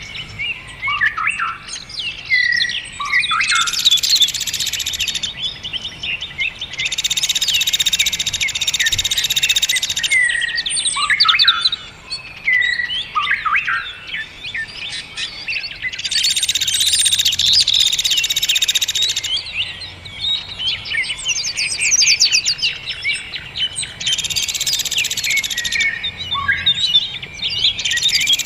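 Songbirds singing: bursts of very rapid, dense trilling a few seconds long alternate with varied chirps and swooping whistles.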